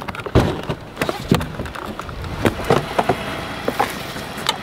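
Footsteps on gravel strewn with pine needles: a series of irregular sharp crunches and knocks.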